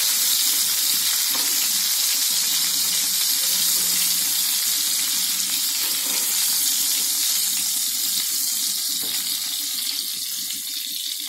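Hot mustard oil sizzling steadily in a frying pan as shallow-fried prawns are lifted out with a spatula, with a few faint ticks. The sizzle eases slightly near the end.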